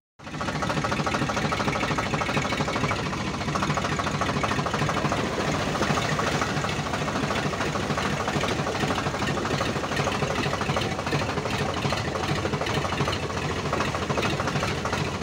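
Tractor diesel engine running steadily, heard close up with a dense, even chugging. It starts abruptly just after the opening and keeps a constant level throughout.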